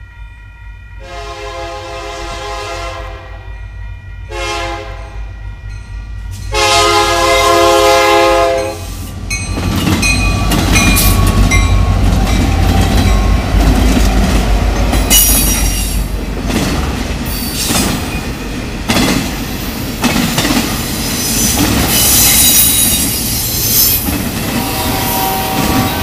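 Diesel freight locomotive air horn blowing a long, a short and a long blast for a grade crossing. About ten seconds in, the lead SD70M and two SD70ACe locomotives pass with a loud engine rumble. Intermodal flatcars follow, clattering over the rails with wheel squeal.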